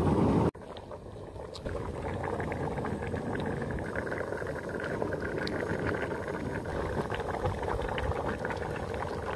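Pot of thick catla fish curry boiling, with many small irregular pops and bubbles over a steady low rumbling hiss. The level drops abruptly about half a second in.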